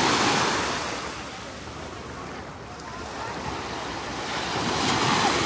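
Sea waves breaking and washing up on a beach. The surf is loudest at the start, dies down in the middle, and swells again near the end.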